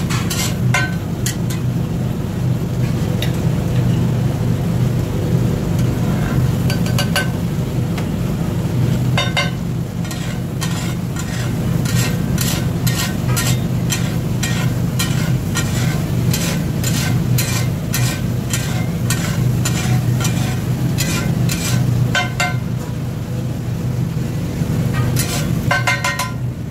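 A steel spatula scrapes and clacks against a large flat iron tawa as pav bhaji is mashed and spread, with the bhaji sizzling on the hot plate. The strikes come in short runs, with a fast run of repeated clacks through the middle. A steady low hum runs underneath.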